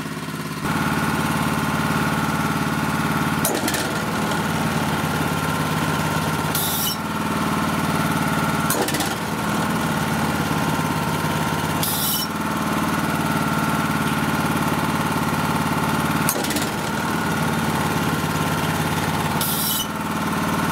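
Honda HS970 snowblower's engine running while its electromagnetic auger clutch is switched on and off several times, each switch marked by a click and a shift in the running note. Three times a brief high 'kee' squeal sounds as the clutch disengages, cutting off short now that the clutch air gap has been reset.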